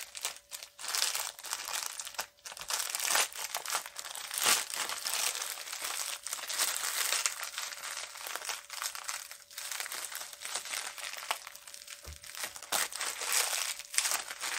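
Black plastic wrapper around a Funko Soda vinyl figure crinkling and rustling continuously as it is handled and opened, with many small sharp crackles.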